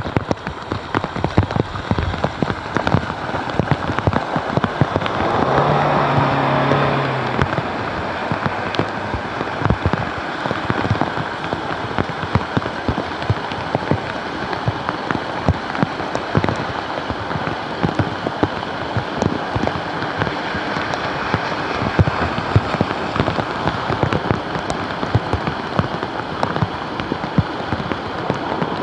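Heavy cloudburst rain pelting a flooded street and standing water: a dense steady hiss full of sharp drop impacts. About five seconds in, a low hum with a swell of rushing noise rises and fades over about two seconds.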